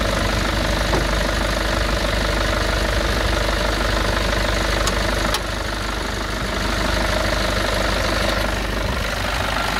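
2016 Nissan Patrol's 3-litre turbo-diesel engine idling steadily, with two faint clicks about halfway through.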